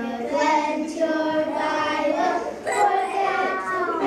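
Young children singing a song, with notes held for about a second at a time.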